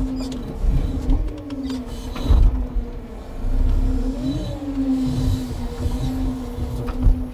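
Timber truck's hydraulic loading crane whining with the engine running, the pitch wavering and rising briefly as the crane is worked, over a low rumble with several dull thumps.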